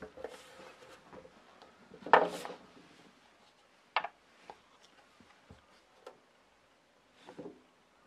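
Workshop handling sounds around a leather stamping press: a short rustling scrape about two seconds in, the loudest sound, then a sharp click about four seconds in as a brass stamping die is handled on the press's metal bed, followed by a few light ticks and a brief rub near the end.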